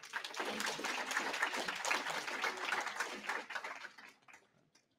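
Audience applauding at the end of a talk, the clapping dying away about four seconds in.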